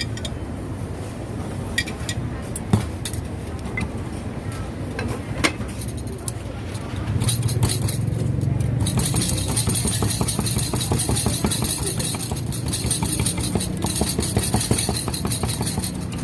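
Scattered clinks of glasses and utensils, then from about seven seconds in a steady engine-like running sound with a hiss and fast ticking.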